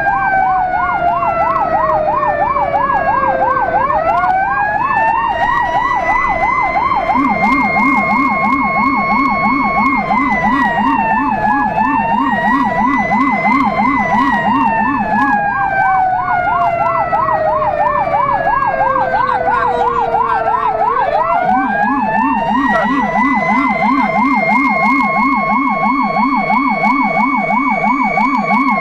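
Fire engine's emergency sirens on an alarm run: a fast yelp cycling about three times a second over a slow wail that falls and rises every few seconds. A low-pitched Rumbler siren warbles beneath them, switched in about seven seconds in for about eight seconds, and again about twenty-one seconds in.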